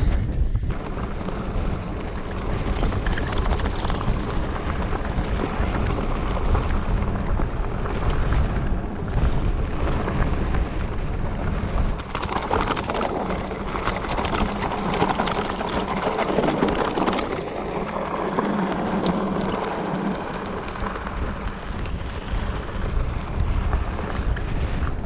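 Strong wind buffeting a GoPro's microphone: a continuous heavy low rumble with a broad rushing hiss over it.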